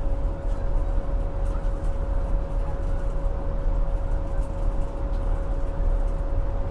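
Rooftop HVAC equipment running steadily: a low rumble with a constant mid-pitched hum.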